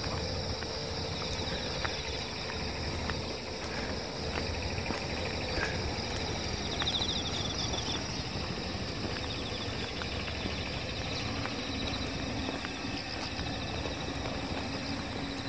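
Footsteps of a person and a leashed dog walking on an asphalt road, with a faint irregular tapping, over a steady background of insects. A short insect trill sounds about seven seconds in.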